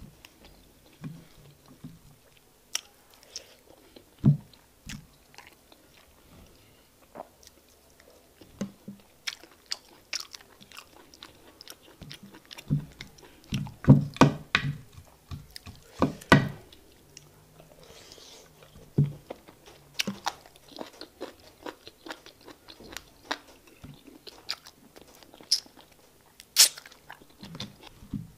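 Close-miked eating of egusi soup and fufu by hand: wet chewing, lip smacks and sharp sticky mouth clicks in an irregular run, with a few louder bites about halfway through and near the end.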